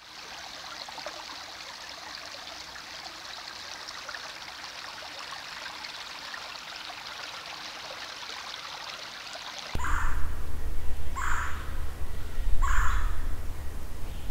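Water trickling steadily. About ten seconds in it cuts suddenly to a louder low rumble, with a bird calling four times about a second and a half apart.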